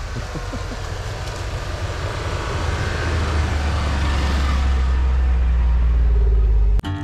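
A motor vehicle driving, its low rumble growing steadily louder and then cutting off abruptly near the end.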